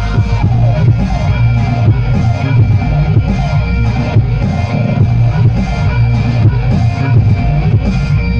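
Loud music with heavy bass and a steady beat, played through a large sound system.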